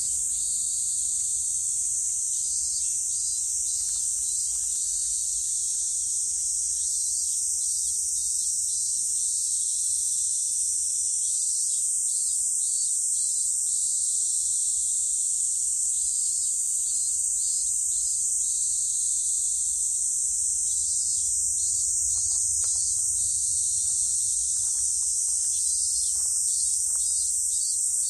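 Summer cicadas singing in a loud, steady, high-pitched chorus. A second, pulsing call comes in short phrases about every four to five seconds over the drone.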